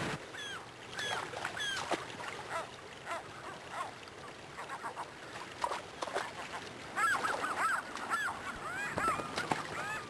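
Gulls calling, many short arched calls over the steady rush of river water. The calls grow busier and louder about seven seconds in.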